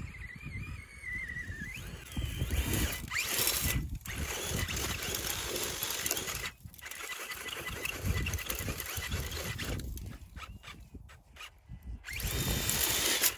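Wind buffeting the microphone, a gusting rumble that rises and falls and drops away briefly a few times. In the first two seconds a thin whine wavers up and down in pitch.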